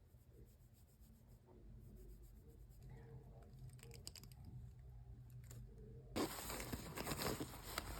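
Packaging being handled: faint light clicks at first, then from about six seconds in a much louder rustling, crinkling and tearing.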